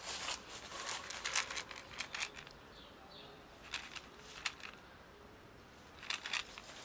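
Dry cat food rattling in a handheld plastic tub, in several short bursts of rustling clicks: a dense run in the first two seconds, then a few more about four seconds in and near the end.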